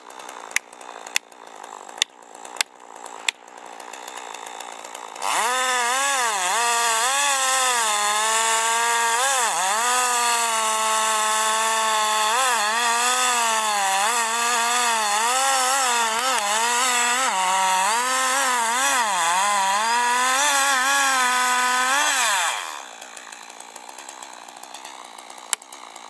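A few sharp axe blows knocking felling wedges into a tree's back cut, then a chainsaw running at full throttle cutting into the big trunk for about seventeen seconds. Its pitch repeatedly dips and recovers as the chain bogs in the cut, and it cuts off near the end.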